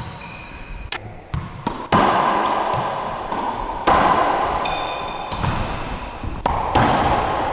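Racquetball rally: the hollow rubber ball cracking off racquets and the court walls in a string of sharp hits, the loudest about two, four and seven seconds in, each ringing on in the boxed-in court's echo. Brief sneaker squeaks on the hardwood floor in between.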